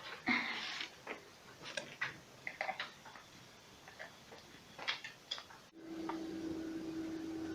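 Scattered clicks and rustling from plugging in an LG refrigerator, then, about six seconds in, the refrigerator starts running with a steady hum.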